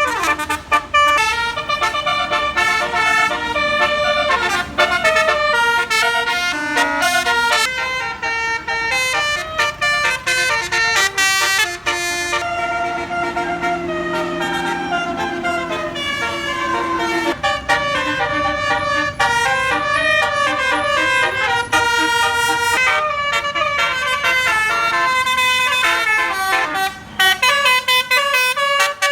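A bus's 'telolet basuri' multi-tone musical horn playing a quick tune, stepping rapidly from note to note, with a few longer held notes midway through.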